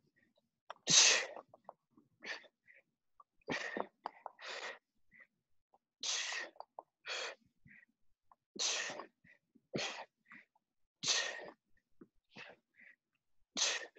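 A man breathing out sharply and breathily, about once a second, with each repetition of knee tucks.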